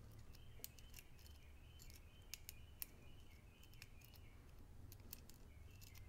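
Faint, scattered clicks of a steel pick working the pins inside a Centurion HS padlock's keyway, single-pin picking under light tension.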